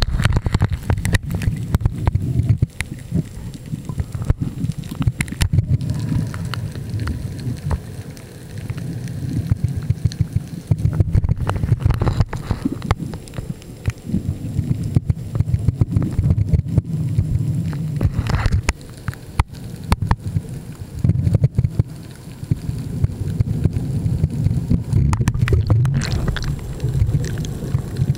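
Muffled underwater sound picked up by a Canon SD750 compact camera in a waterproof housing: low rumbling water noise that swells and fades every few seconds, with many scattered clicks and knocks.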